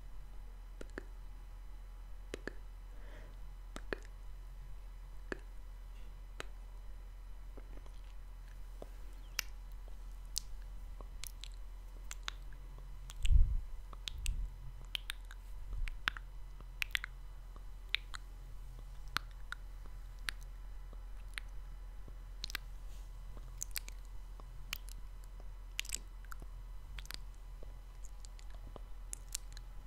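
Close-miked ASMR mouth sounds: scattered wet lip smacks and clicks over a steady low hum. About halfway through, a low thump is the loudest sound, followed by a smaller one.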